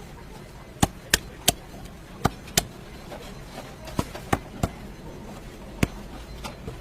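A knife or cleaver chopping chicken on a cutting board: about nine sharp strokes, mostly in quick twos and threes, over a steady low background noise.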